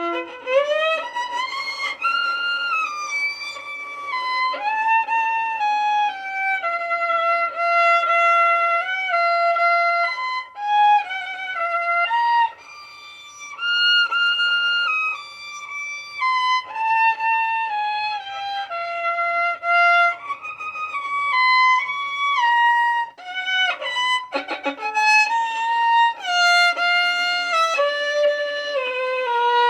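Solo violin playing a slow melody in held, stepwise notes, starting abruptly and easing into a short soft passage about twelve seconds in.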